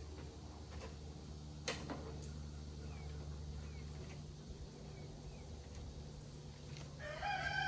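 Rooster crowing: one long call that starts about seven seconds in and rises at first, then holds steady. Before it there is only a quiet background with a sharp click about two seconds in.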